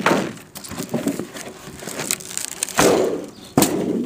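Sheet of polycarbonate being peeled and flexed off the silicone sealant glued to a solar panel, giving several short noisy bursts as it tears free, with a sharp crack about three and a half seconds in.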